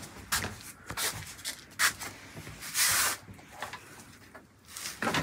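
Handling noise from a person moving about with an electric guitar: scattered knocks, clicks and rustles, with a longer rustle about three seconds in.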